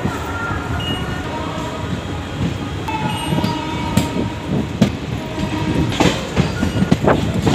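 Garib Rath Express coaches rolling slowly out of a station, heard from beside the open coach door: a steady running rumble with a few sharp clicks as the wheels cross rail joints.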